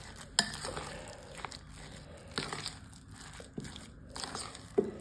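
Rice-flour batter being stirred with water in a bowl: quiet, wet mixing with a few light knocks against the bowl.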